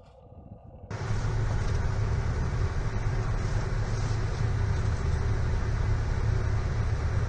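Radio-controlled model construction vehicles running: a steady mechanical drone of electric motors and gearing, starting about a second in.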